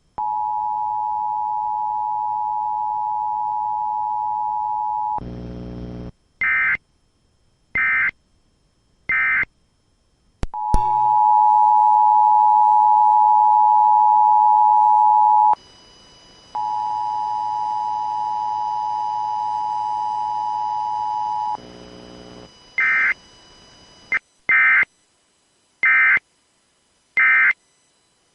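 Emergency Alert System test signals: the steady two-tone attention signal is held for about five seconds three times, with a one-second gap between the last two. In between come short low buzzes and groups of brief high-pitched data bursts of the EAS digital code, three in a row about a second apart each time, with a click about ten seconds in.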